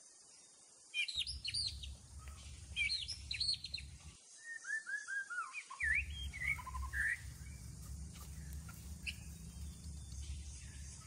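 Small birds chirping and singing in quick phrases of rising and falling notes, busiest from about a second in until about seven seconds, including a run of five quick descending notes, over a low steady background rumble.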